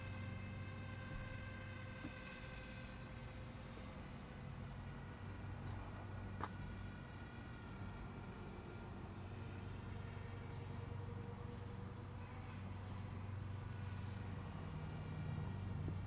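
Faint, steady whine of a Twin Easystar RC plane's electric motors and propellers flying far overhead, its pitch drifting slightly. There is a single light click about six and a half seconds in.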